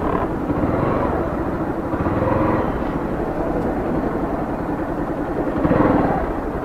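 Motorcycle engine running steadily at low speed, rising briefly twice.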